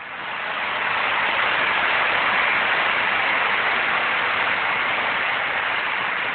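A large crowd applauding. The clapping swells up over the first second, holds steady, then begins to die away near the end.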